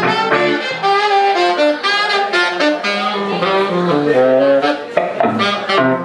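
Saxophone playing a jazz melody of quickly changing notes, with electric guitar accompaniment underneath.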